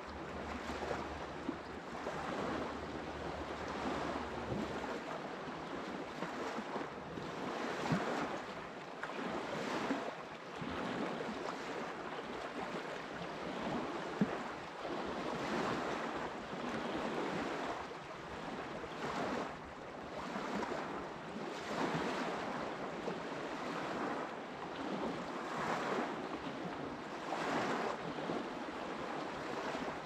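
Water of the Bukhtarma rushing, swelling and easing every couple of seconds.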